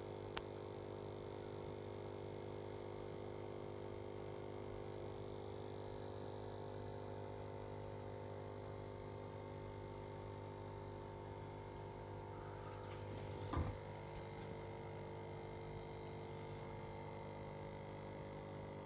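Steady electrical hum from running aquarium equipment, with one short knock about thirteen and a half seconds in.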